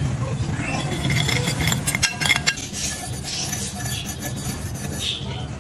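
Terracotta bowls and cups clinking and scraping as they are handled, with a quick run of sharp clinks about two seconds in.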